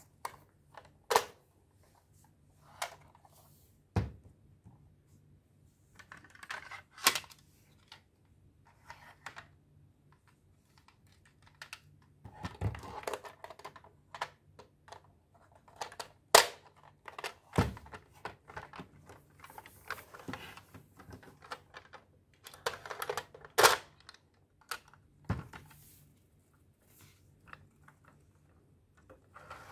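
Hard plastic toy parts being handled and fitted together: the DX Zero-Two Driver Unit clicking and knocking against the Zero-One Driver buckle, with several sharp snaps spread out and stretches of scraping and rubbing in between.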